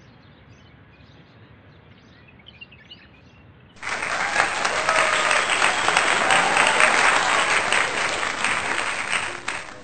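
Applause from a crowd, a dense patter of many hands clapping that starts suddenly about four seconds in and cuts off abruptly near the end, laid over the picnic audio as a sound effect. Before it, faint chirping over a quiet outdoor hush.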